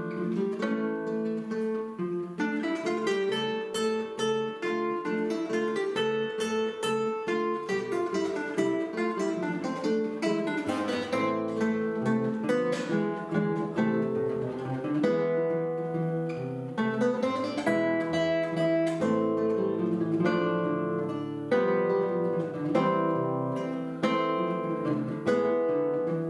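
Two classical guitars playing a duet, a steady run of plucked notes with two lines moving together.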